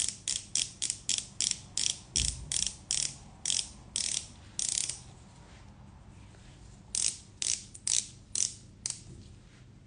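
Twist-up cuticle oil pen clicking as its end is turned to feed oil up to the brush tip: a ratchet-like run of about a dozen crisp clicks that slowly spread out, a pause of about two seconds, then five more clicks.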